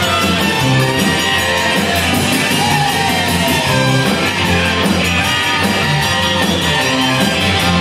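Live Tex-Mex rock band playing loudly, with an electric guitar out front over bass and drums and one long note falling in pitch about three seconds in.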